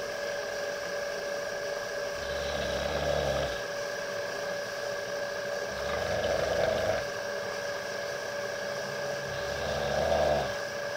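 A pet snoring in low, rumbling snores, three of them about three and a half seconds apart, over a steady high-pitched hum.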